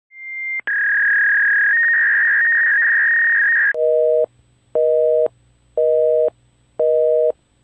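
A high, steady electronic tone for the first few seconds, changing pitch slightly partway through, then a telephone busy signal: a low two-note beep sounding about once a second.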